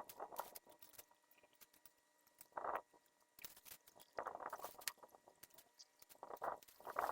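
Pruning a soursop tree: sharp clicks from a hand pruning tool and several short crunching, rustling bursts of leaves and branches being cut and shaken, the loudest near the end.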